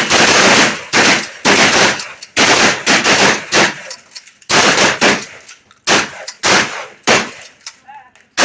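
Rapid string of 12-gauge-class shotgun blasts, about two shots a second, with a short pause just before the middle.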